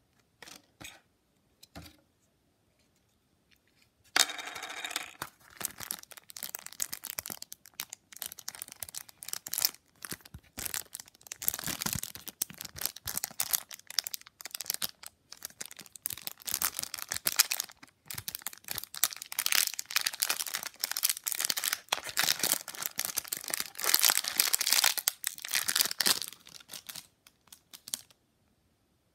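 Plastic packaging crinkling and tearing as it is handled and opened, starting about four seconds in and stopping shortly before the end. A few light clicks come first.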